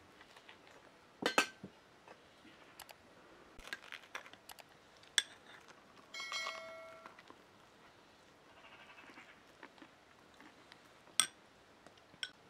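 Scattered clinks and clicks of tableware: a plastic spoon against a glass bowl of ketchup and dishes on the table, a few sharp ones standing out. About six seconds in, a brief ringing tone lasting under a second.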